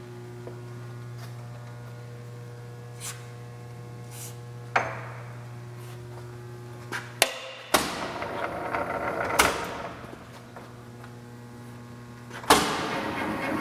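South Bend Heavy 10 lathe running with a steady hum and a few light knocks. About seven seconds in, the hum gives way to metal clunks and rougher running as the drive is shifted into back gear. A loud clunk near the end, after which the lathe runs on noisier at slow speed.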